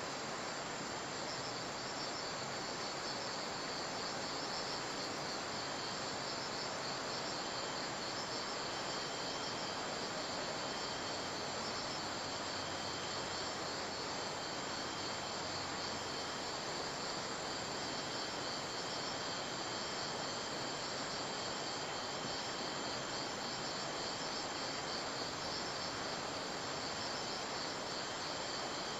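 Crickets chirping steadily in a continuous chorus over a constant background hiss.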